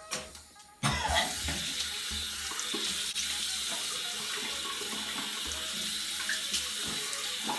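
Bathroom sink faucet turned on a little under a second in, then running steadily into the basin and over cupped hands.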